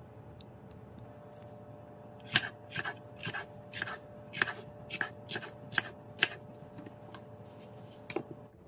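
Kitchen knife slicing a firm banana pepper into rings on a wooden cutting board: about a dozen quick cuts through the pepper into the board, starting about two seconds in, then one more cut near the end.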